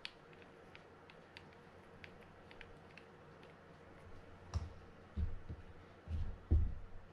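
Faint, irregular small clicks and taps from brushing grease into the spool of a Mitchell 302 spinning reel. In the second half come a few dull low thumps as the reel is handled.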